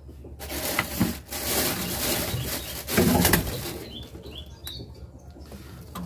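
Black-naped oriole fluttering and flapping its wings in a wire cage, a rustling flurry of about three seconds that is loudest near the middle, followed by a few light taps.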